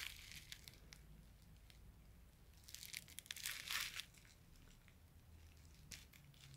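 Faint crinkling of plastic bubble wrap as a toy figure is handled over it, mostly in one stretch of about a second and a half near the middle.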